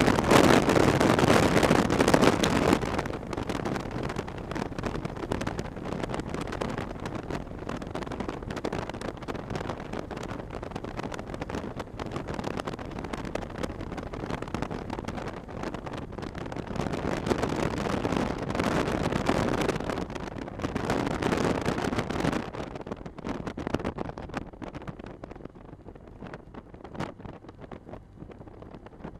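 Wind rushing over the microphone and road noise from a moving 2018 Honda Gold Wing motorcycle, a steady rushing hiss. It is loudest for the first few seconds, drops lower, swells again about two-thirds of the way through, then falls back quieter near the end.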